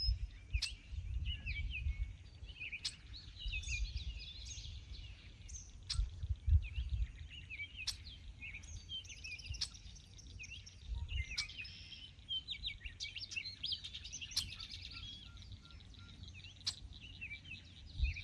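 Several small birds chirping and trilling in short, quick phrases over a low, uneven rumble.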